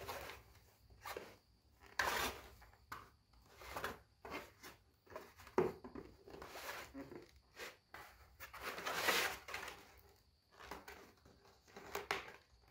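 3D-printed plastic parts being handled and pressed together: irregular light knocks, scrapes and rustles, with a longer rustle about nine seconds in.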